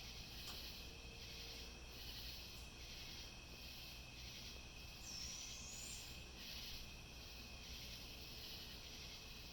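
Night-time insect chorus: a dense, pulsing high buzz with a steady high tone under it and a low hum. About five seconds in, a brief high squeak rises in pitch.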